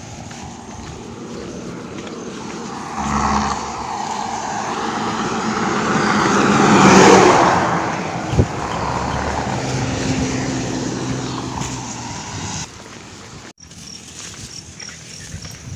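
A motor vehicle driving past on the road, its engine and tyre noise swelling to a peak about halfway through and then fading away.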